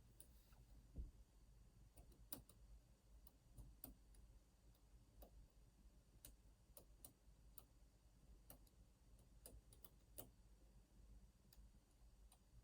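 Near silence with faint, irregular small clicks, from picking tools working inside a lock.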